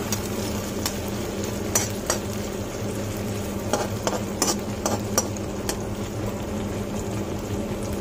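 Sliced onions and green capsicum sizzling as they fry in oil in a wok. A steel spoon stirs them, knocking and scraping against the pan about nine times, mostly in the first six seconds.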